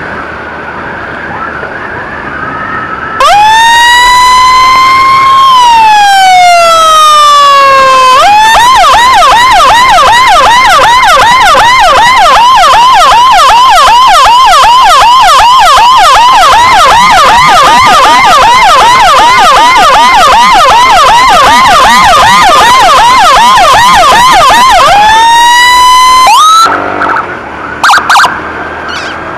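Electronic emergency siren, very loud. About three seconds in it winds up into a long wail that slowly falls, then switches to a fast yelp that sweeps up and down several times a second. It winds up once more and cuts off, followed by a few short blips; before it starts there is only the road and engine noise of a moving motorcycle.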